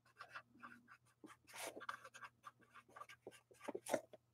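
Pen writing on paper: short, quick, faint scratching strokes, with brief pauses between them.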